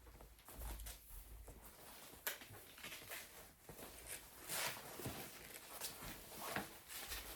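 Faint handling noises: irregular rustling with a few light clicks and knocks, the sharpest about two seconds in.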